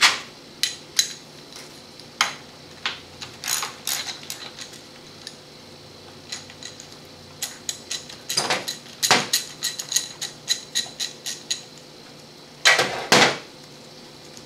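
Metal hand tools clinking and knocking on a Chrysler 727 automatic transmission's tail housing and the bench as a socket wrench works the bolts. Scattered sharp clinks give way to a quicker run of clicks in the middle, then two heavier knocks near the end.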